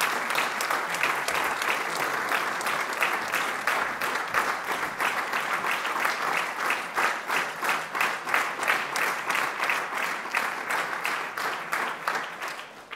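Audience applauding, a dense sustained round of clapping that thins out and fades near the end.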